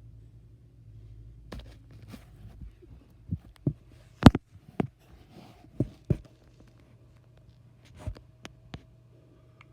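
A red rotary telephone being handled and dialled: about a dozen irregular knocks and clicks, the loudest about four seconds in, over a low steady hum, with a faint steady tone coming in around the middle.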